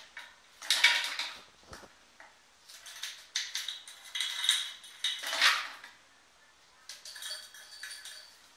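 Frozen strawberries dropped into a plastic food-processor bowl, the hard frozen pieces clattering and clinking against the plastic in several separate bursts.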